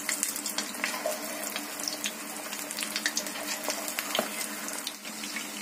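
Marinated chicken pieces deep-frying in hot oil in a kadhai: a steady sizzle and bubbling, dotted with many small crackles.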